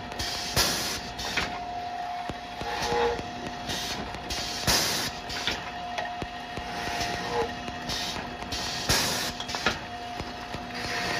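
Double-head drilling machine running, its drill motors giving a steady whine, with a surge of noise every couple of seconds as the bits bore through wooden blocks, and a few sharp clicks.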